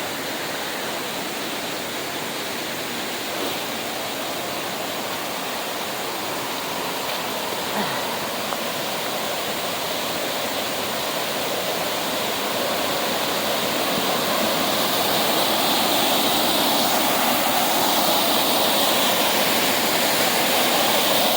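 Waterfall rushing with a steady, even roar of falling water, growing louder partway through and staying loud.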